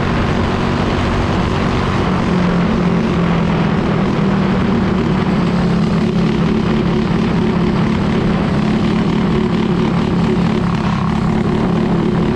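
Small single-cylinder Briggs & Stratton go-kart engine running hard at a steady, high pitch during a high-speed run.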